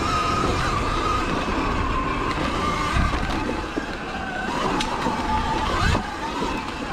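Sur-Ron electric dirt bike's motor and belt primary drive whining steadily under power, over rumble from the trail and wind. The whine's pitch drops a little after the middle as the bike slows, and a few sharp clicks come in the second half.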